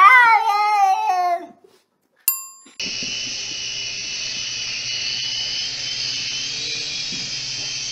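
A cat meows loudly, one drawn-out cry that rises and then falls, lasting about a second and a half. A short bell-like ding follows, then a steady high-pitched whine of a small electric toy's motor.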